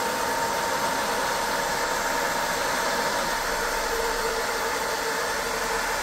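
The cooling fan of a Longer 20 W diode laser module runs steadily under a metal fan cover, a constant rush of air with a steady whine in it. The cover restricts the fan's airflow, and the restriction can really be heard.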